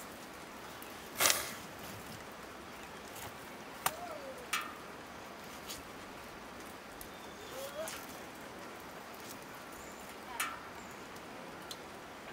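Raw meat being cut by hand against a large knife blade resting on a stone: a few sharp knocks and scrapes, the loudest about a second in, over a steady low hiss.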